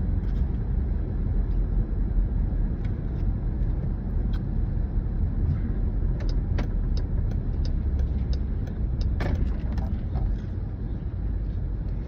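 Steady low car road noise heard from inside the cabin, with sharp crunches of ice being chewed. The crunches come scattered at first, then in a quick run from about six to ten seconds in.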